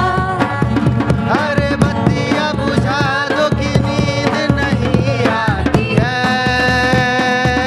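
Live performance of a Bollywood song: a gliding melody line over a steady hand-drum and percussion beat.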